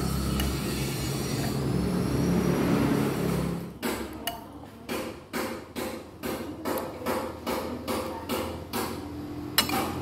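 A low steady hum that stops about four seconds in, then a regular knocking of sharp strikes, about two a second, with a sharper click near the end.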